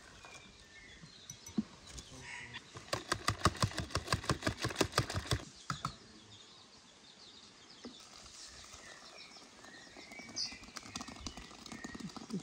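Wire whisk beating a berry and custard mixture in a plastic bowl: a rapid, even run of clicking strokes, about seven a second, from about three seconds in, stopping at around five and a half seconds.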